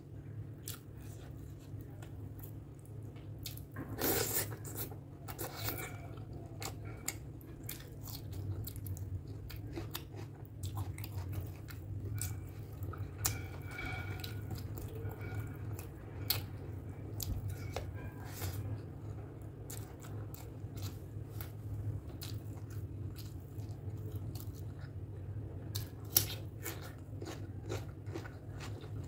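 Close-miked eating: chewing with wet mouth clicks and smacks as pork curry and rice are eaten by hand, with soft squishing of rice mixed in the fingers. A steady low hum runs underneath, and there is a louder bout of sound about four seconds in.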